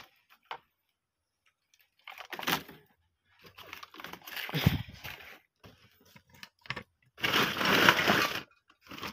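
A woven plastic sack rustling in bursts as it is handled and lifted over scrap, with a thump about halfway through and small knocks and clicks of junk being moved; the loudest rustle comes near the end.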